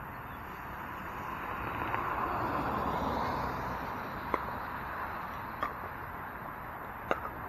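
Pickleball paddles striking the ball three times in a rally, sharp pops about a second and a half apart in the second half, over a steady background hiss that swells and fades in the middle.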